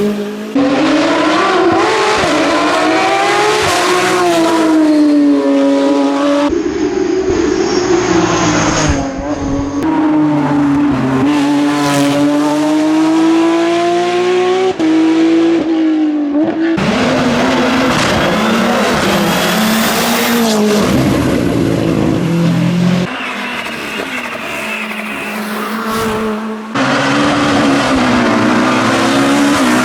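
Racing car engines at full throttle climbing a hill, one car after another: each engine note rises through the revs, then falls back at a gear change and climbs again.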